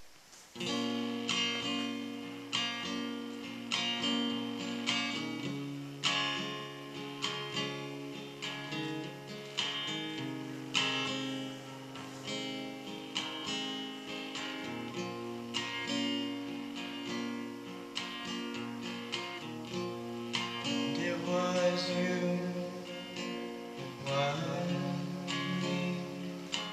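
Acoustic guitar strummed in a steady rhythm of chords, with an electric guitar playing along, as an instrumental passage before the vocals begin.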